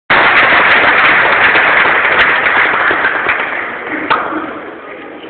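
Audience applauding, loud at first and dying away over a few seconds.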